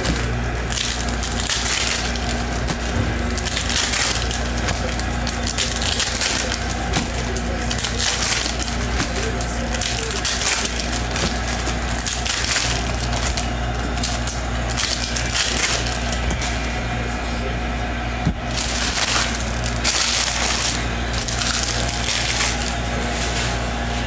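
2023-24 Panini NBA Hoops basketball cards being flicked and shuffled by hand and dropped onto stacks, in quick repeated papery rustles, over a steady low hum.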